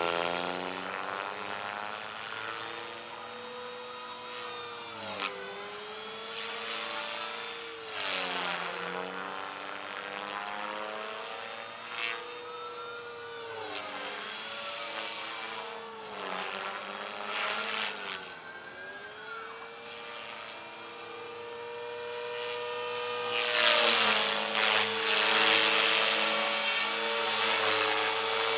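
Align T-Rex 450 Sport electric RC helicopter in flight: a steady whine from its motor and gears with rotor noise, the pitch repeatedly dipping and recovering as it manoeuvres. It grows louder near the end as it comes down low near the ground.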